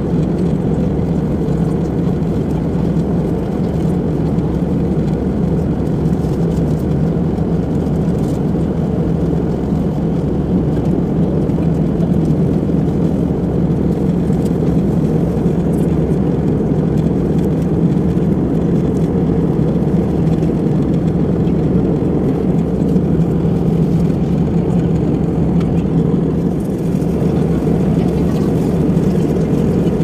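Steady, low-pitched cabin noise of an airliner in flight: engine and airflow noise heard from inside the cabin at a window seat over the wing.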